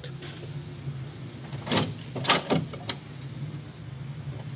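Radio-drama sound effects: four short, soft knocks close together about two seconds in, over a steady low hum from the old recording.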